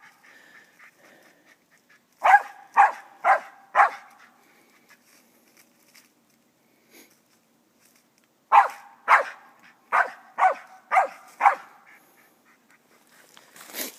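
Squirrel dog barking treed at the foot of a tree with a raccoon up it: a run of four quick barks, then after a pause of several seconds a run of about six more, roughly two a second.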